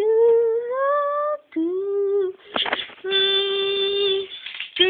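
A voice singing or humming three long held notes. The first slides upward, and the next two are held steady at one pitch.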